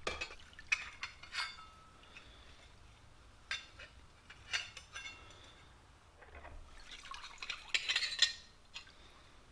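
Steel milling cutters being lifted dripping out of a tub of EvapoRust and stacked, clinking against one another with each clink ringing briefly; a few single clinks, then a quick run of them near the end, with liquid dripping back into the tub.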